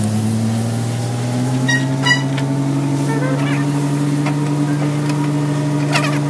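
Scania P410 XT truck's diesel engine running steadily at idle, its pitch creeping slowly upward. A few light clicks come about two seconds in and again near the end.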